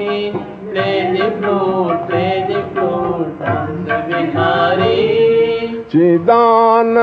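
Hindu devotional kirtan singing: the sung line ends on 'Bihari' and runs on as a wavering melody without clear words. A short break comes about six seconds in, and then a new phrase starts on steady, held notes.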